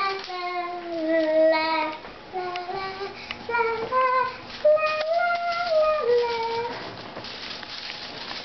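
A young girl singing a wordless tune in held notes that step up and down in pitch.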